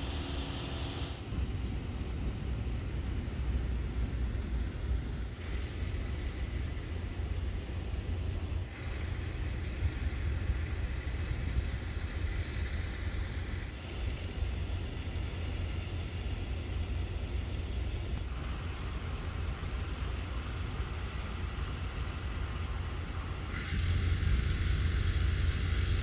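Outdoor background noise: a steady low rumble that shifts at several edits and grows louder near the end, with a faint steady high tone for a stretch in the middle.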